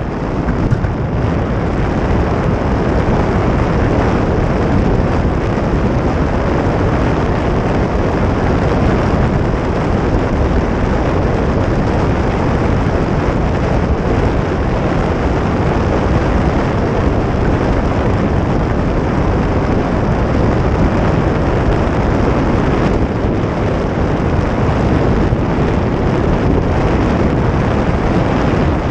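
Steady wind buffeting on the microphone and the rumble of the wheels on asphalt from an engineless soapbox cart coasting fast downhill.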